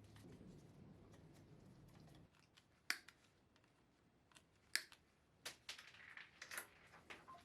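A faint low hum that cuts off about two seconds in, then scattered sharp clicks and snips of small tools or parts being handled.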